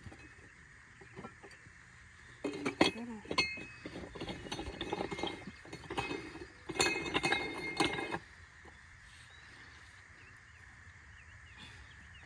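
Metal tools clinking and rattling in two bouts, about two and a half seconds in and again around seven seconds in, with short ringing metallic tones.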